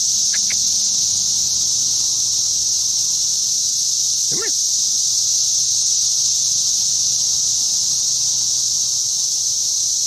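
Brood X periodical cicadas chorusing: a loud, steady, high-pitched drone. A brief short call sounds about four and a half seconds in, with a couple of faint chirps near the start.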